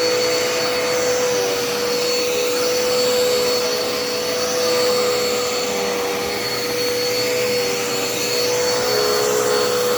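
Dirt Devil Endura Reach upright vacuum cleaner running steadily: a constant motor hum with a thin high whine on top.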